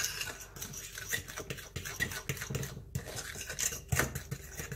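A utensil stirring pancake batter in a bowl: quick, irregular scraping and clicking against the bowl as the batter is mixed until smooth and free of lumps.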